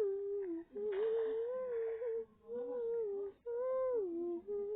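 A girl's voice humming a wordless tune: four short phrases of held, gently gliding high notes with brief breaks between.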